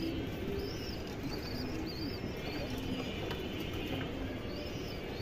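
Domestic pigeons cooing: a run of short, low coos, with faint higher chirping calls over them.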